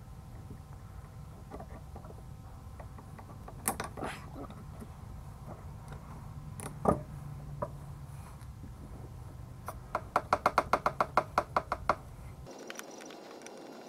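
Pliers and metal carburetor parts handled on a workbench: scattered sharp clicks and knocks over a steady low hum, with one louder knock about halfway and a quick even run of about a dozen sharp clicks near the end.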